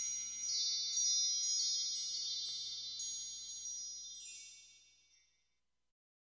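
A run of high, bright chime tones, many light strikes overlapping and ringing on, then dying away about four and a half seconds in.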